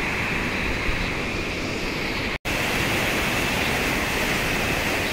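Swollen river rushing over rapids, a steady, even roar of water, cut off for an instant about two and a half seconds in.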